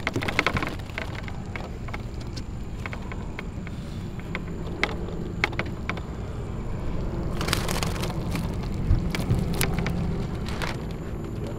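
Clicks, taps and knocks from a bass and gear being handled on a bass boat's deck (a fish measuring board, a landing net), in a burst at the start and more scattered taps later. A steady low hum runs underneath.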